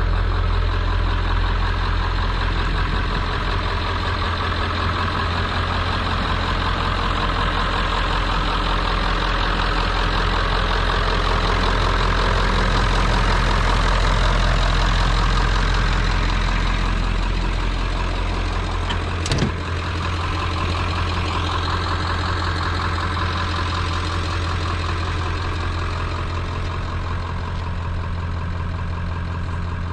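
1996 Ford F350's 7.3 L Power Stroke turbo-diesel V8 idling steadily, loudest near the open engine bay. A single sharp click comes about two-thirds of the way through.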